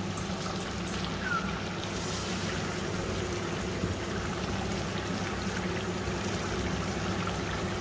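Chicken pieces simmering in their own juices in a large aluminium pot, a steady bubbling hiss.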